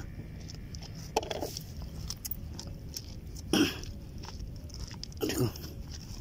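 Three brief vocal sounds from a person, one of them like a cough, over a steady low background hum.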